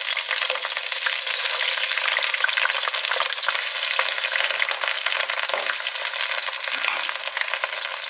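Pieces of fish frying in hot, foaming oil in a wok: a steady sizzle full of fine spattering pops.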